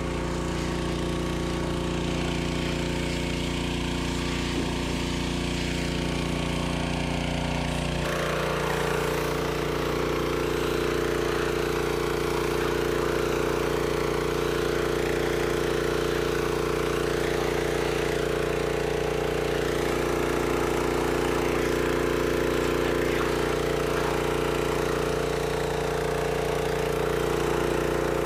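Briggs & Stratton gas pressure washer running steadily, its engine under load while the wand sprays water through a white tip, with the hiss of the spray. About eight seconds in, the engine tone and the spray hiss shift and the hiss becomes stronger.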